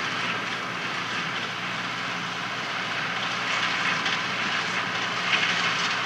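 Renault 8014 tractor's diesel engine running steadily as it pulls a New Holland 285 small square baler working along a windrow of hay.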